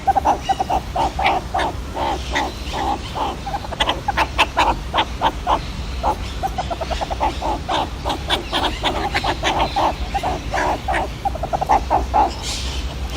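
Meerkats calling: a rapid run of short, repeated calls, several a second, that stops about a second before the end.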